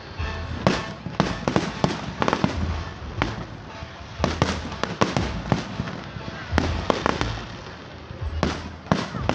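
Aerial fireworks display: a steady run of sharp bangs and crackling pops, about two a second at irregular spacing, over deeper booming shell bursts.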